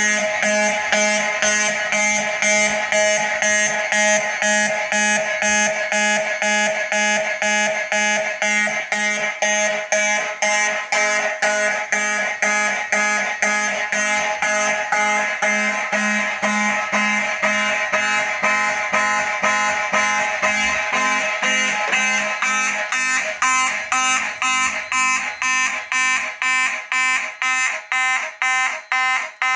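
Simplex mechanical fire alarm horns blaring in march-time pulses, about two a second: a fire alarm triggered from a manual pull station.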